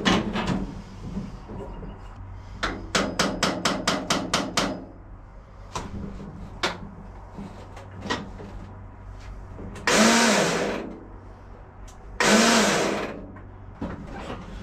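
AGCO 1616H lawn tractor's starter motor whirring in two bursts of about a second each, near the end, without turning the engine over. The owner takes this for the starter drive not engaging the engine. Earlier comes a quick run of about ten sharp clicks.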